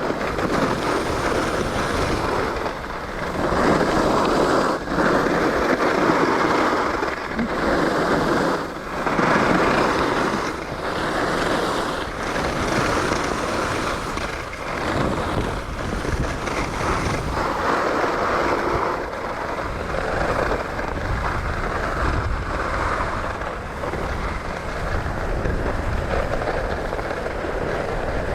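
Edges scraping and hissing over packed ski-run snow through a series of turns, swelling and easing every second or two, with wind rumbling on the microphone.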